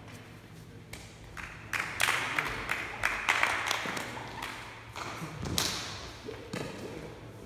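A quick run of sharp taps and thuds echoing in a large gym hall, densest and loudest between about two and four seconds in, then thinning out.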